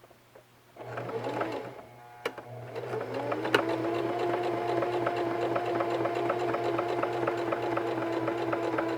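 Singer Heavy Duty 4432 sewing machine, freshly cleaned and fitted with a new feed dog, starting about a second in, running briefly, then speeding up just before three seconds in and stitching steadily through layers of cotton. Its motor hum runs under fast, even ticking from the needle strokes, with one sharp click as it speeds up.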